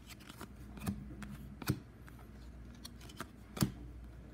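A stack of hockey trading cards being flipped through by hand, each card slid across the one behind it with a short papery snap. There are about half a dozen snaps, and the sharpest comes about three and a half seconds in.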